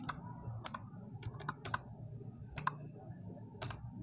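Faint, separate keystroke clicks, about ten at uneven intervals, as the digits of a phone number are typed in one by one.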